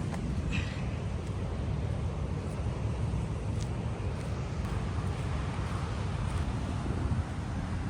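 Wind buffeting the microphone with the wash of ocean surf behind it, a steady gusty rumble.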